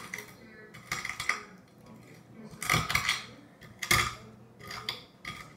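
Metal fork scraping and clinking against a plate in about four short bursts.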